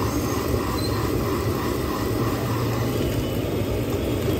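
Steady rushing of a street-stall gas burner on a high flame under a steel frying pan, with the omelette mixture frying in the pan.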